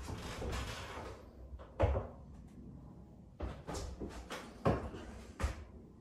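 Four or so separate sharp knocks and thumps, spaced a second or more apart, over faint rustling.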